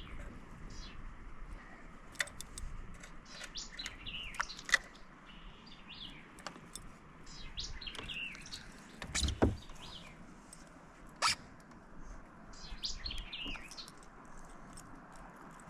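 Wild birds chirping and singing in short clusters of calls, with a few sharp clicks and one louder low knock about nine seconds in.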